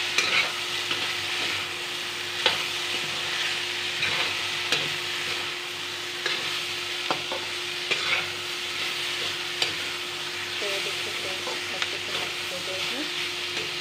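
Wooden spatula stirring sliced potatoes and pointed gourd frying in oil in a steel kadhai: a steady sizzle broken by irregular scrapes and knocks of the spatula against the pan.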